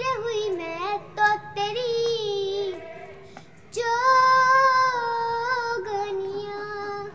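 A young girl singing a Hindi Christian worship song: a few short sung phrases, then a long held note from about halfway through that steps down to a lower pitch near the end.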